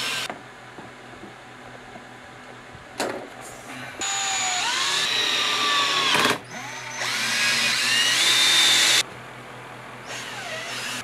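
Power drill with a driver bit running screws through the mounting feet of a contactor into an oak board: a brief burst near the start, another short one around three seconds in, then two longer runs of about two seconds each, the motor's whine gliding up and down in pitch as the screws bite.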